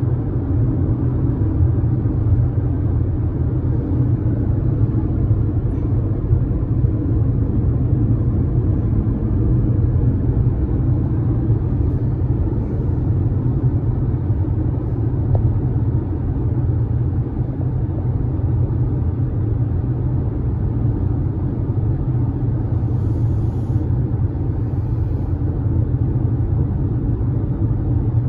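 Steady low rumble of a car's road and tyre noise, heard inside the cabin while driving at highway speed.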